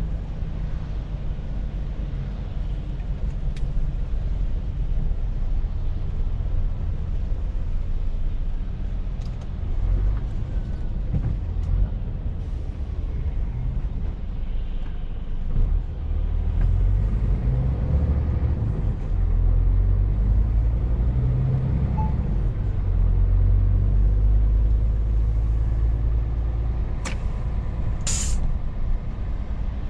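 Scania truck's diesel engine and road noise heard from inside the cab while driving, a steady low rumble that swells and eases as the truck speeds up and slows. Near the end there is a brief hiss of air.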